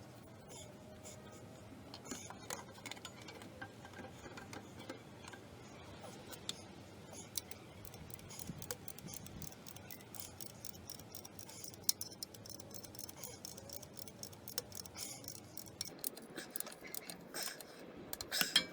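A torque wrench ratcheting as the clutch pressure-plate bolts are run down to torque, in irregular runs of sharp metal clicks. One louder click comes near the middle, and a louder cluster comes near the end.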